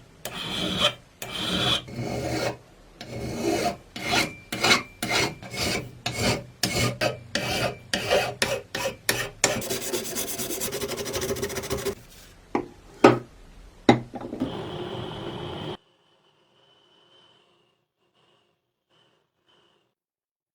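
Repeated rasping strokes of hand filing, about two strokes a second and quickening, then a few seconds of steady continuous scraping. Two sharp clicks follow, and it falls silent for the last few seconds.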